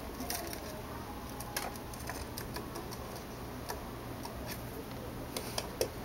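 Faint, irregular light clicks and taps from a lovebird and a rabbit moving about in a wire cage, bunching up near the end.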